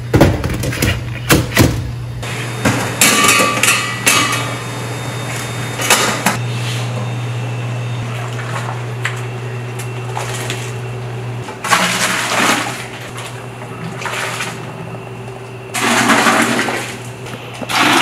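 Stainless steel food pans clattering against each other, then soup scooped with a plastic bowl and poured splashing into a metal stockpot, in a few pours during the second half. A steady low hum runs under the first part.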